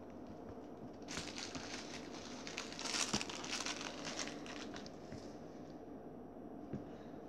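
Puppy chewing and tugging at a plush toy: scratchy rustling and crinkling in a run of bursts from about a second in, loudest around the middle.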